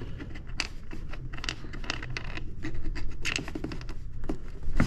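Irregular scratching, scraping and clicking of hard plastic as a cup-holder insert is worked into place by hand inside a jet ski's console.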